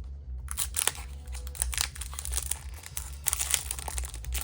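Foil Pokémon booster pack wrapper crinkling as it is handled, in irregular bursts of crackle.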